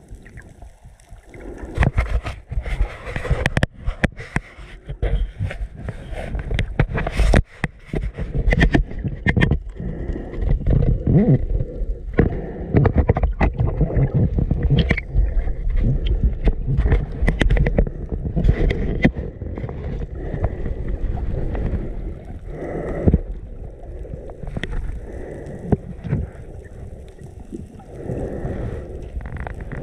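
Water moving around the microphone underwater: a muffled low rumble, with many sharp clicks and knocks throughout. It gets louder about two seconds in.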